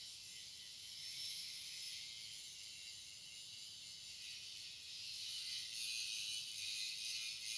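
Electric welding arc sizzling and crackling steadily, a high hiss that grows a little louder after about five seconds.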